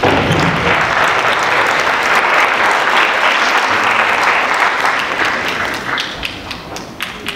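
Audience applauding, starting suddenly and full, then thinning to a few scattered claps near the end.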